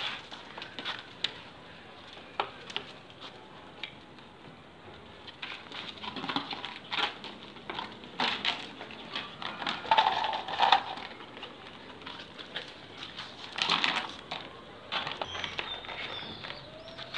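Scuffling, knocks and short rough bursts as a Belgian Malinois mother and puppy play-fight over a rubber toy on a concrete floor, with several louder bursts in the middle.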